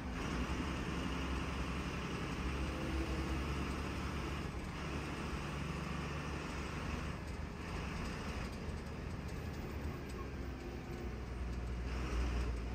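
KSRTC Minnal bus driving on the road: a steady low engine drone with road and tyre noise.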